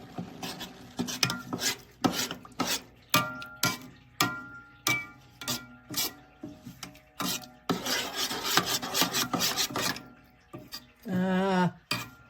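Metal spoon stirring and scraping coffee grounds and caramelized sugar in a stainless steel Turkish coffee pot. Repeated clinks against the pot ring briefly, with a stretch of steady scraping about eight seconds in.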